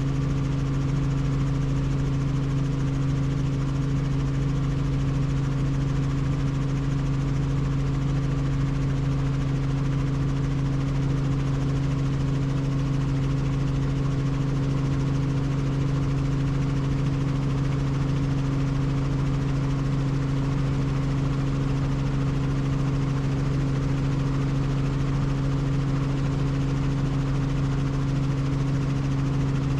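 Helicopter in flight, its engine and rotors giving a steady low drone with no change in pitch or loudness.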